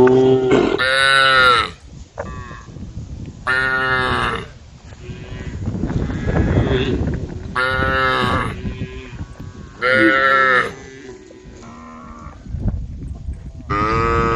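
Cows mooing in turn: about six long, loud moos, each around a second, a few seconds apart, some low and some higher-pitched. A low noisy rumble fills the gap in the middle.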